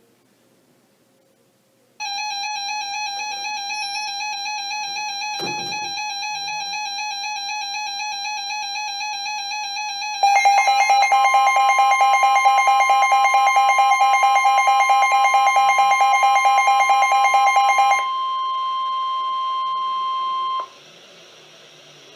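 Weather radio alert tones. An electronic alarm tone with a slight warble starts about two seconds in, with a click a few seconds later. About ten seconds in it gets louder with a fast pulsing beep, and the steady 1050 Hz NOAA Weather Radio warning tone joins it. The warning tone runs on alone for a few seconds and cuts off suddenly near the end.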